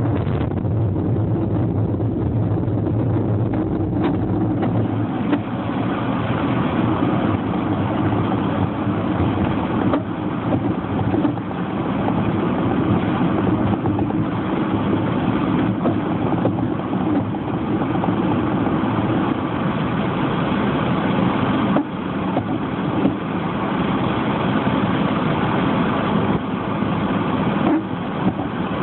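A vehicle's engine running steadily, with a deeper hum in the first few seconds.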